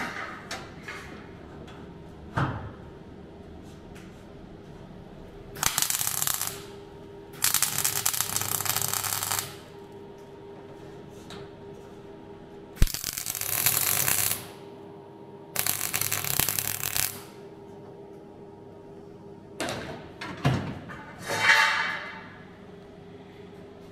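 MIG welder tack-welding steel box-section bracing into a car shell: four bursts of arc crackle, each one to two seconds long and starting and stopping abruptly, over a steady low hum. A few knocks and handling sounds follow near the end.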